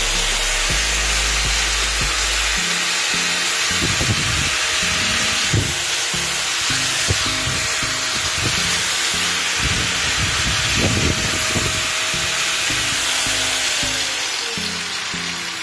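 Angle grinder motor running with a steady whirr, its tone dropping near the end as it spins down: a test run after cleaning and reassembly. Music plays underneath.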